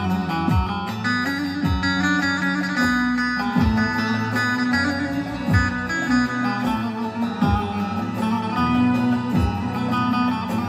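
Live Turkish folk music: a bağlama (saz) playing a plucked melody over Korg keyboard accompaniment, with a low drum thump about once a second.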